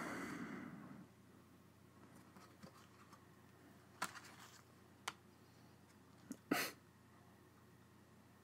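Faint handling of paper postcards: a few soft clicks and brief rustles over quiet room tone, the last and longest about six and a half seconds in.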